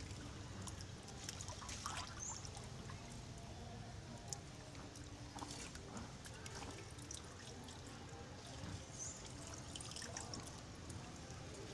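Faint splashing and trickling water as small monkeys swim and dunk in a water-filled tank, with scattered small splashes and clicks and a few short high chirps.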